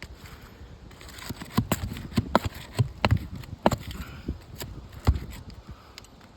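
Irregular clicks, knocks and scrapes of hand tools working under asphalt roof shingles, prying out old roofing nails. About ten sharp knocks come between one and five seconds in.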